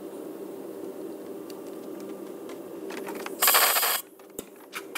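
A half-second blast of compressed air from an air blow gun about three and a half seconds in, blowing debris out of the reamed diesel injector bore. It comes over a steady low hum with a few faint ticks of tools.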